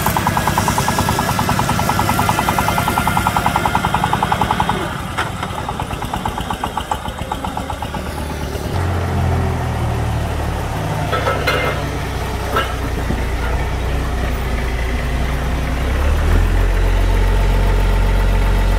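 A công nông farm truck's single-cylinder diesel engine running with a fast, regular beat as the loaded truck pulls away. About halfway through it gives way to a Komatsu FD40 diesel forklift's engine running steadily, rising in level near the end, with a few clicks of the controls.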